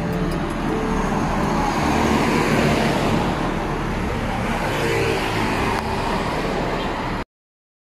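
Road traffic passing close by: a steady wash of engine and tyre noise from cars and motorcycles, cutting off suddenly about seven seconds in.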